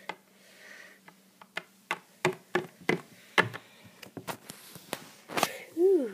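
Plastic toy figure tapped again and again on a hard tabletop, a string of sharp clicks about two to three a second, as the figure is walked off. Near the end comes a short tone that falls in pitch.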